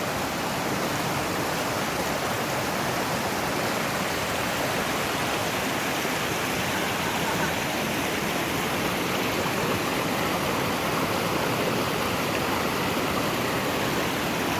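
Mountain valley stream rushing steadily.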